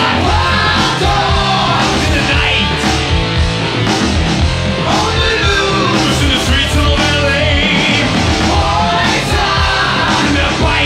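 Hard rock song playing at full volume, with a steady beat.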